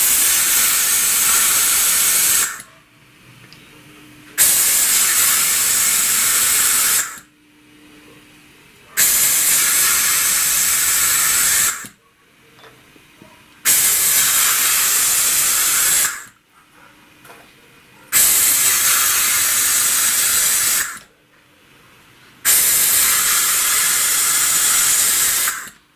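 Compressed-air blow gun with a rubber-tipped nozzle, hissing in six bursts of two to three seconds each with short pauses between. The air is being blown into the VAZ-21099 cylinder head to check that the newly fitted valves seal.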